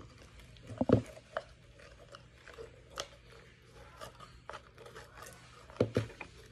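Crunchy, bead-filled slime being dug out of a plastic jar by hand: soft crunches and scrapes, with a few sharp knocks of the plastic container, the loudest about a second in and near the end.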